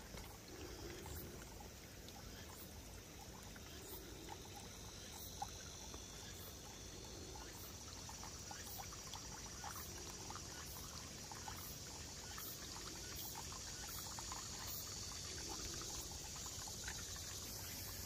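Faint, steady outdoor ambience: a high hiss with many small scattered ticks and pops.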